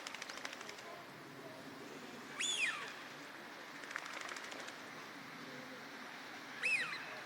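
Male Eurasian wigeon giving its whistled "whee-oo" call twice, about four seconds apart, each a quick whistle that rises and then falls.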